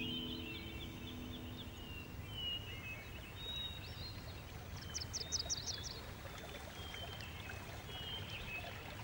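Birds chirping outdoors over a steady low rushing background, with a quick run of higher chirps about five seconds in.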